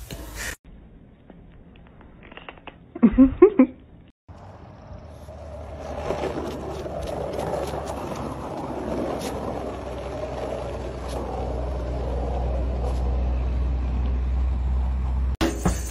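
Skateboard wheels rolling down an asphalt road, a steady rumble that grows louder, with a few clicks. About three seconds in there is a brief burst of short vocal sounds.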